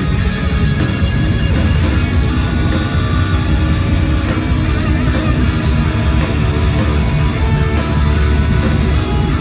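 Live instrumental progressive metal played at full volume: electric guitars and a drum kit, with heavy bass, through a venue PA.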